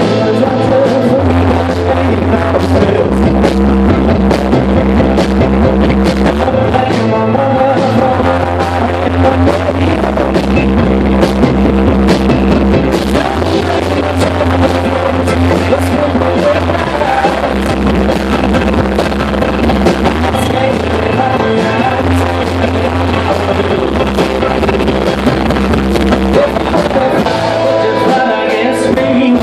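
Rock band playing live and amplified: guitars, bass and drums, with the bass holding low notes that change every couple of seconds.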